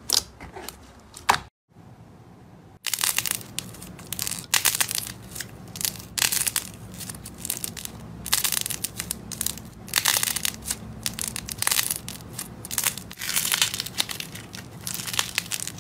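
Crunchy slime being squeezed and pressed by hand: a dense, irregular crackling. It starts after a short break near the start.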